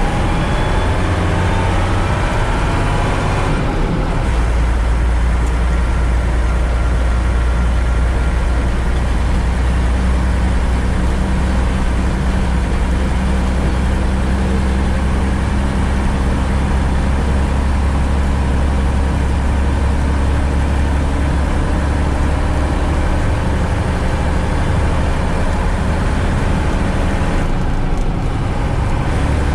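Mercedes-Benz Unimog U 406's six-cylinder diesel engine pulling the truck along, heard as a deep steady drone. Its revs rise in the first few seconds, the sound changes about four seconds in, and it eases off briefly near the end.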